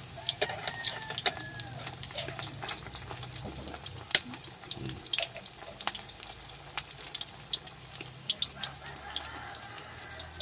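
Battered tugnos (tiny fish in egg and cornstarch batter) frying in hot oil in a wok: a steady sizzle with many sharp, irregular crackles and pops.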